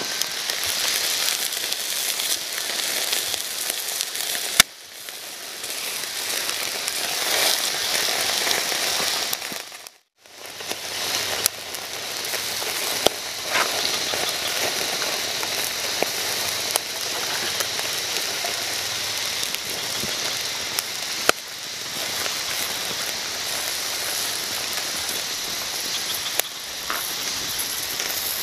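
Wood campfire crackling, with frequent sharp pops over a steady hiss, as a whole chicken roasts directly on the flames. The sound breaks off briefly about ten seconds in.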